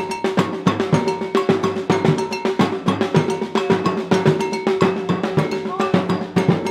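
Group street drumming on large silver samba surdo drums and a snare drum, played with sticks in a fast, steady, interlocking rhythm with sharp metallic rim strikes over the low drum booms.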